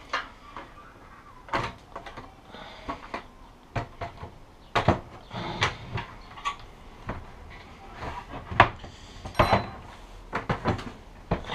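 A loose kitchen cupboard door being handled and swung on its concealed hinges: a string of irregular knocks and clicks, the sharpest about five and eight and a half seconds in.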